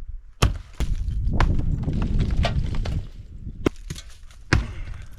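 Sledgehammer strikes on a concrete-filled cinder-block wall: sharp, heavy blows, two in the first second and two more near the end. Between them comes a rough low rumble lasting about two seconds.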